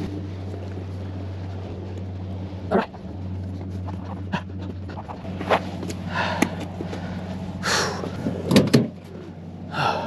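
A man breathing hard in short, heavy breaths, winded from carrying a large catfish up the bank, over a steady low hum.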